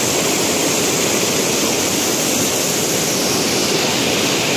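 Fast river water rushing and churning over rocks in rapids, a loud, steady rush of white water.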